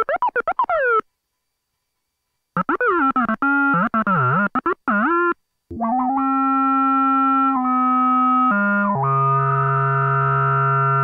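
Moog Werkstatt-01 analog monophonic synthesizer played from a keyboard: first short, choppy notes with warbling, dipping pitch, then a brief silence, then held notes stepping down in pitch. The last note is lower and brighter.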